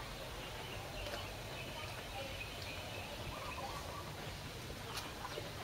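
Outdoor ambience: faint scattered bird chirps and distant voices over steady low background noise.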